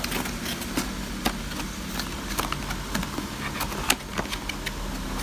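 A cardboard puzzle box with a plastic window being handled and opened by hand: irregular clicks, taps and crinkles of cardboard and plastic, over a steady low hum.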